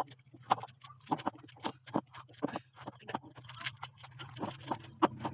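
A small kitchen knife slicing through raw squash held in the hand, giving sharp, irregular clicks about three times a second. A low steady hum runs underneath.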